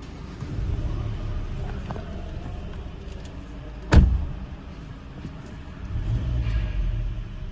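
Hyundai Sonata engine running with a steady low rumble, starting and running normally now that its fuse-box relay fault is fixed. A single sharp knock about four seconds in is the loudest sound.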